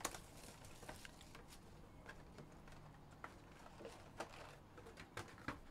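Faint rustling and scattered light taps of foil-wrapped trading-card packs and their cardboard box being handled as the packs are taken out.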